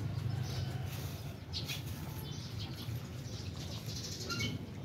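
A litter of puppies eating rice off the ground together: irregular wet smacking and chewing from several mouths at once. A brief high chirp is heard near the end.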